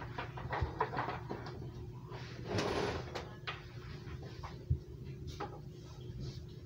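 Handling noise as computer cables are gathered and moved around a desk: scattered clicks and knocks, a brief rustling scrape about two and a half seconds in, and a low thump near five seconds.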